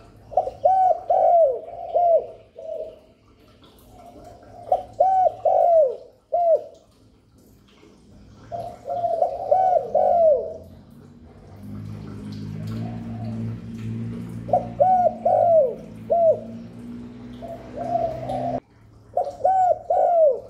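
Spotted dove cooing (gáy gù): phrases of short, falling coo notes in bouts every four or five seconds. A low hum runs underneath for several seconds in the second half and cuts off suddenly near the end.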